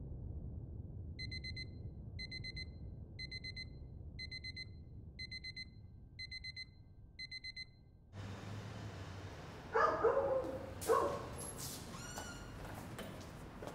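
A digital alarm beeping: a quick burst of several high beeps once a second, seven times, over low background noise. About eight seconds in, the sound cuts to outdoor street ambience with a few louder sounds, then sharp footstep clicks near the end.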